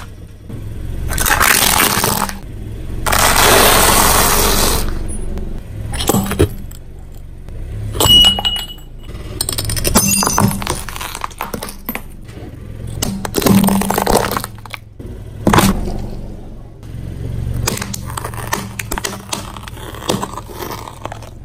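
Objects being crushed under a car tyre: two longer stretches of crunching in the first five seconds, then a run of sharp cracks, snaps and breaking sounds.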